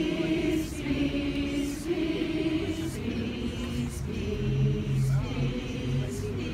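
A large crowd singing a song together without accompaniment, long held notes stepping from one pitch to the next.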